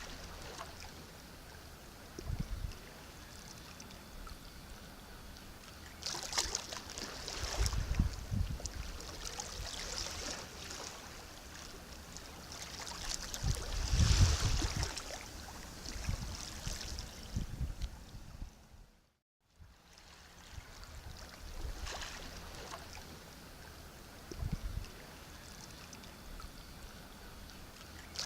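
Sea waves washing and breaking on a shore, the noise swelling in several surges and falling back between them. There is a brief cut to silence about two-thirds of the way through.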